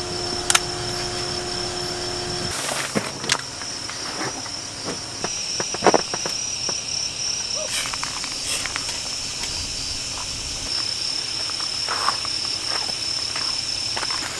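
Night insects chirping in a steady high trill. It is broken by occasional light knocks and crunches of footsteps and guy-line handling on gravel.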